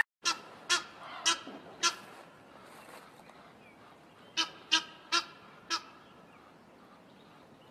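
Egyptian goose honking: a run of four short honks, a pause of about two seconds, then another run of four.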